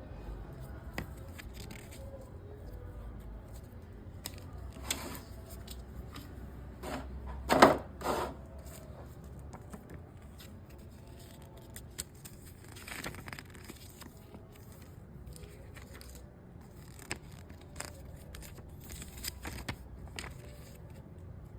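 Paper leaflets and packaging being handled, with scattered light rustling and crinkling and two louder crinkles about eight seconds in.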